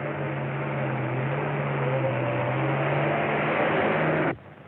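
Vintage car engine running hard, a steady drone that rises slightly in pitch and grows louder, then cuts off abruptly near the end.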